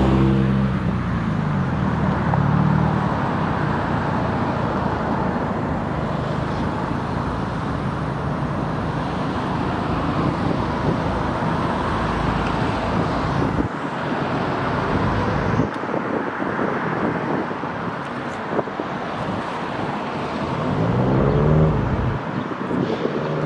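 Two EMD SD40-2-type diesel locomotives, each with a 16-cylinder EMD 645 engine, running as they pull an approaching ballast train. The engine rumble is steady and swells near the end as the lead unit draws close.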